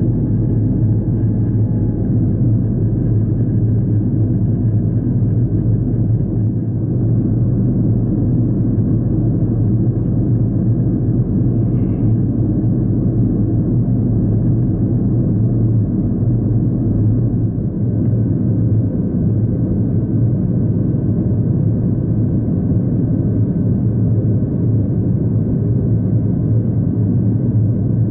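Boeing 737-500 cabin noise in descent, heard from a window seat over the wing: a steady roar of airflow and the CFM56-3 engines, with a deep rumble.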